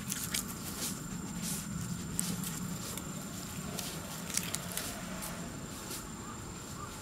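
A dog moving about on grass on its leash: soft rustling with scattered light clicks.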